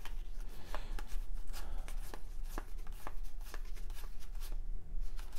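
1993 Topps baseball trading cards thumbed through by hand, each card slid off the stack with a light papery click, a few irregular clicks each second.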